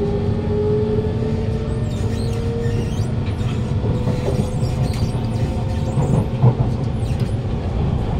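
Kawasaki C151 train's GTO-VVVF inverter and traction motors whining as the train pulls away, several tones rising slowly in pitch, over the rumble of the wheels on the track. The car's motor is unusually loud, a so-called strong motor.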